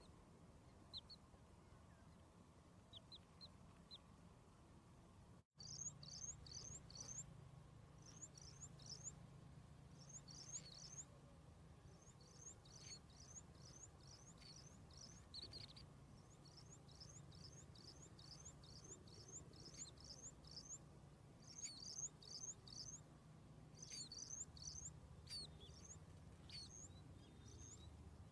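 Newly hatched bird chicks peeping: quick high chirps, each a short downward slide, several a second. There are only a few at first; after the sound cuts out for an instant about five seconds in, the chirps come almost without pause over a faint steady low hum.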